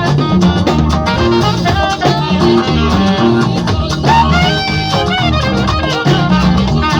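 Loud music playing without a break, with a bass line and gliding melodic lines over it.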